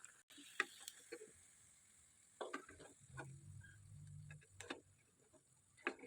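Faint sizzling of besan-battered bread karanji frying in oil over a low flame, with a few light, scattered clicks.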